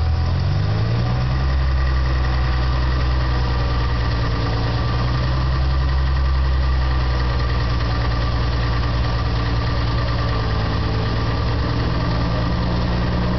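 A 1997 Ford Mustang's 3.8-litre V6 runs steadily after its speed comes up from idle about a second in. The engine has a chatter/knock in the 1000–1500 rpm range, which the owner cannot place between lifter noise and a rod knock.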